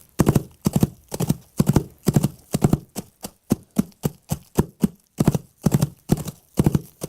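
Foley horse hoofbeats in a galloping rhythm, the strikes in clusters about twice a second. Around the middle they even out into single, evenly spaced strikes, then the galloping clusters come back.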